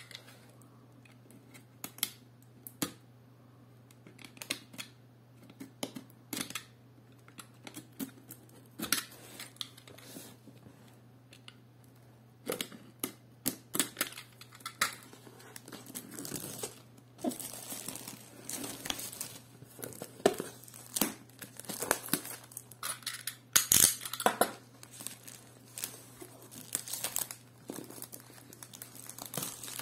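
Plastic shrink-wrap on a cardboard box being slit with a utility knife and pulled away, crinkling and tearing with scattered sharp clicks and taps, sparse at first and much busier in the second half. A steady low hum lies underneath.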